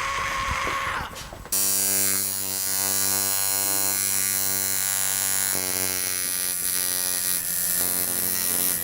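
Electric tattoo machine switching on about a second and a half in, then buzzing steadily as a tattoo is started.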